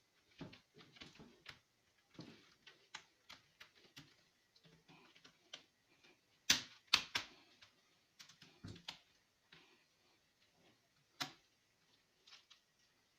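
Irregular plastic clicks and taps of hands working on a laptop. A few louder sharp snaps come about halfway through and one more near the end.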